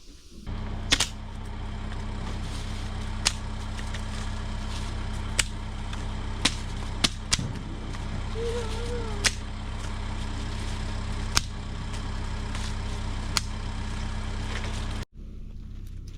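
A steady low engine hum, like a motor idling, with sharp clicks or snaps scattered through it, about nine in all. It cuts off suddenly near the end.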